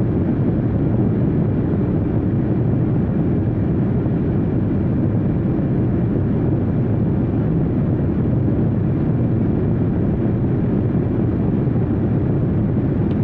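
Steady low roar of a jet airliner heard from inside the cabin: engine and airflow noise, even and unbroken.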